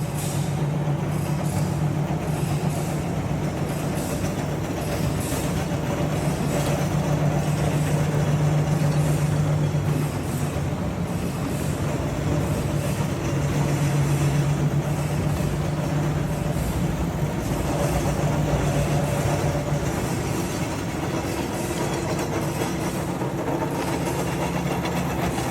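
A heavy machine running steadily, with a strong low hum and a fast faint rattle on top, swelling and easing slightly every few seconds.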